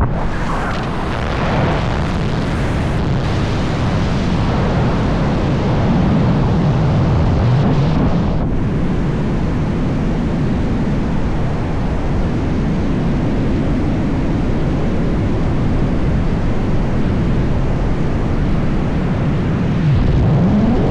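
Rushing wind of wingsuit flight at around 150 km/h blasting over the jumper's camera microphone: a loud, steady roar of wind that swells in the first second after exit and holds, with a wavering low drone running through it.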